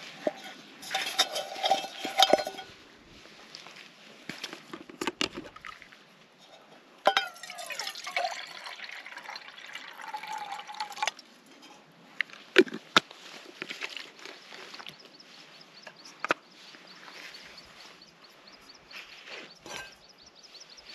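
Water poured from a plastic bottle into a small metal camping pot for about four seconds, starting about seven seconds in and cutting off sharply. Clinks and knocks of the bottle, lid and pot being handled come before and after.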